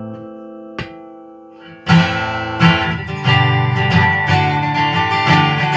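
Martin acoustic guitar amplified through a blend of its onboard mic and transducer pickup. A held chord fades out and a single click comes just under a second in, then chords are strummed from about two seconds in.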